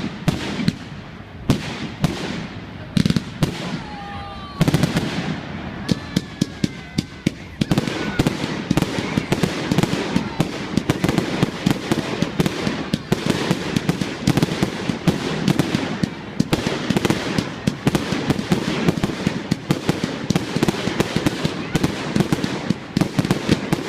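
Fireworks going off: separate sharp bangs at first, then from about a third of the way in a dense, continuous rapid crackling of many small bursts.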